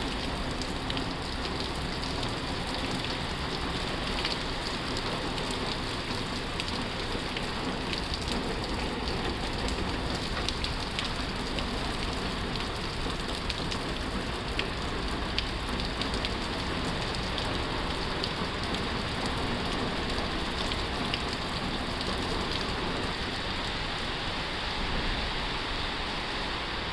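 Heavy rain falling on a tin roof: a steady, dense hiss with countless small drop impacts pattering on the metal.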